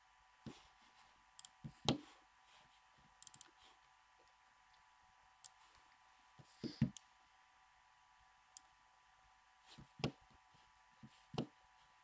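Computer mouse clicks and small soft knocks, about a dozen, irregularly spaced and strongest about two and seven seconds in, over faint room tone with a thin steady hum.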